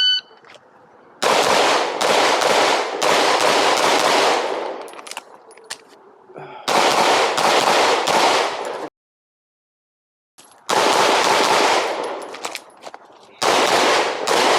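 A shot timer beeps once, then a 9mm Glock 19 pistol fires rapid strings of shots in four bursts separated by short pauses, with a stretch of complete silence near the middle.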